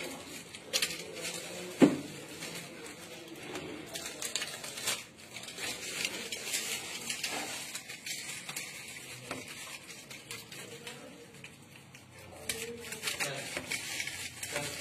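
Plastic packing rustling and crinkling as it is pulled off a sword's hilt, with scattered clicks and knocks from handling the sword and its scabbard fittings, one sharp knock about two seconds in.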